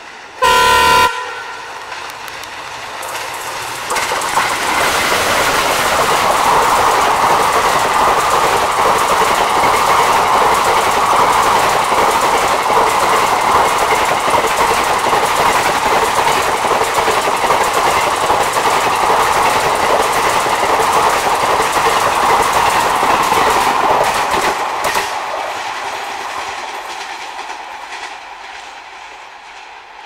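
Twin ALCO WDM3A diesel locomotives give one short blast of their truck-style horn in the first second, then the express runs through at about 110 km/h. The coaches rush past with wheels clattering over the rail joints, a loud steady noise for about twenty seconds that fades away near the end as the train recedes.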